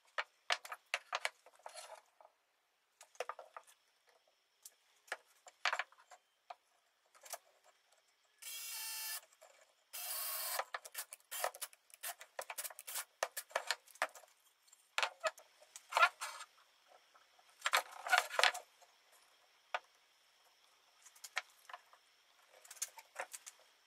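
Cordless drill driving screws into pine leg joints in several short runs of about a second each, among clicks and knocks of the wooden pieces being handled and set on the bench.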